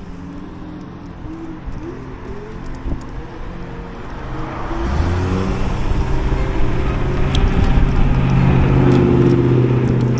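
Electric scooter pulling away and riding along a sidewalk: its motor hum and wind and wheel noise rise about halfway through and then hold steady, with light rattles from the scooter over the pavement.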